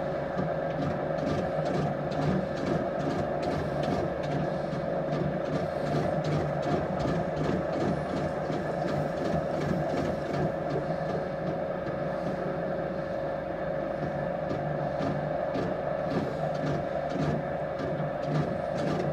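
Potter's wheel motor running at a steady speed, a constant hum with a steady whine, while wet clay turns on the wheel head under the potter's hands. Faint soft rubbing of the hands on the clay.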